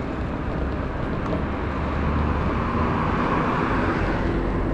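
Steady rumble and rush of wind and tyre noise picked up by a camera riding on an off-road electric Segway rolling over pavement.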